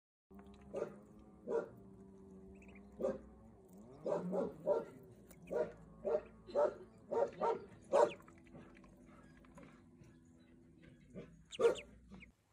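Short, sharp animal calls, about fifteen, in irregular groups, over a steady low hum.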